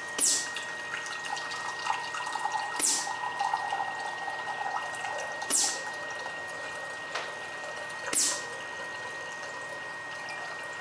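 Automated soft-drink dispenser pouring a Sprite into a cup: a steady run of liquid, with a short sharp swish repeating about every two and a half seconds.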